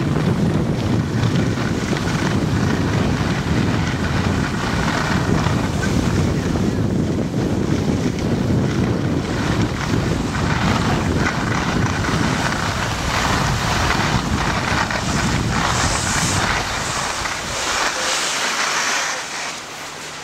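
Wind rushing over the microphone of a camera carried by a moving skier, with the hiss of skis sliding on packed snow. The low rumble eases off near the end.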